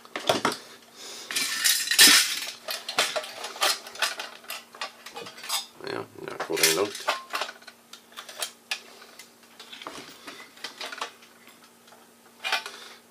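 Chrome-plated sheet-metal shell and frame of a 1936 General Electric model 600 toaster clinking and rattling as it is handled and taken apart: a string of irregular sharp metal clicks and knocks.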